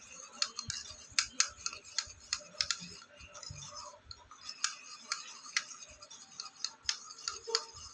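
A utensil stirring glue and water in a container, with irregular clicks and scrapes, a few a second, as it knocks and rubs against the sides.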